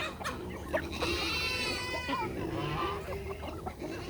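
Chickens clucking in a mixed poultry flock, with a goat bleating in one long call about a second in.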